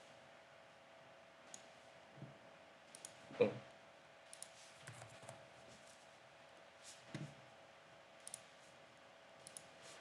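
Faint, irregular computer mouse clicks as dimensions are placed in a CAD sketch, about ten in all, the loudest about a third of the way in, over a faint steady hum.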